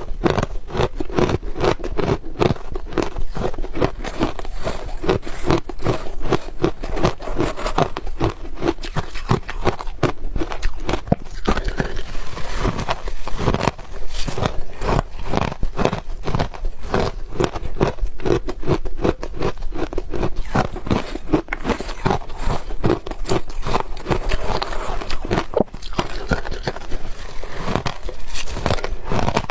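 Ice being bitten and chewed close to the microphone: a steady stream of sharp, crackling crunches, many a second.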